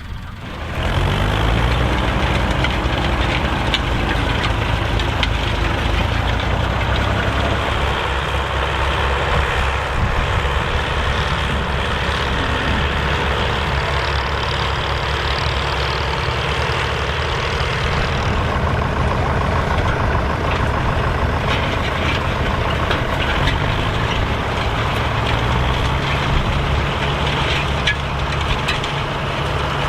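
Massey Ferguson 65 tandem tractor engines running, with a heavy, steady note. The engine pitch rises as the note comes in about a second in, and rises again for a short time near the 24-second mark.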